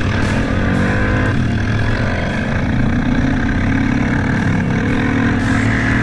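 Dirt bike engines running and revving while riding across sand, the pitch rising and falling with the throttle.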